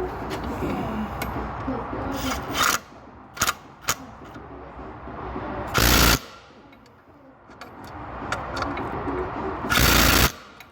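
Clicks and knocks of parts being handled, then two short bursts of a cordless power driver, about four seconds apart, fastening a part back on.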